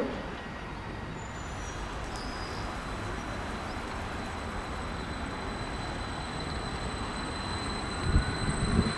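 Westbahn Stadler KISS double-deck electric train rolling slowly into the platform as it arrives, a steady running noise with a high whine that grows stronger. A few low thuds come near the end, as the wheels pass over the track.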